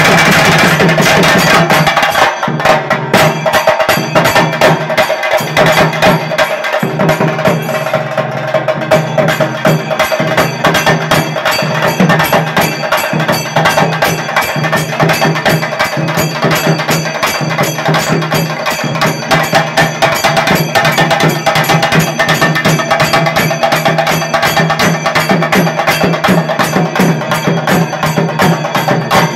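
A group of chenda drummers playing a fast, dense rhythm of sharp stick strokes, with a steady low tone underneath. The strokes stand out clearly from about two seconds in.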